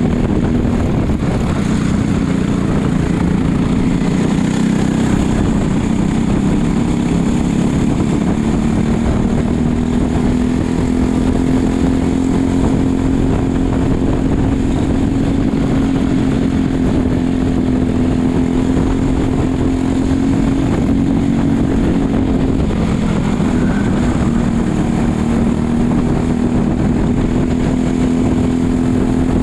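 Racing kart engine running hard at high revs, heard close up from the driver's seat. Its pitch sags near the start, climbs slowly under throttle, dips briefly about three-quarters of the way through, then climbs again.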